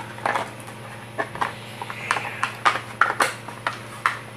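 Hard plastic parts being handled and set down on a tabletop: a string of irregular short clicks and light knocks.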